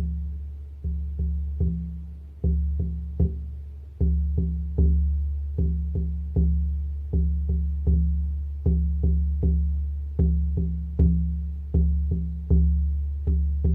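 Low, deep drum struck in a steady heartbeat-like rhythm, each stroke ringing on and fading. It opens with single strokes, then settles into groups of three quick strokes repeating about every second and a half.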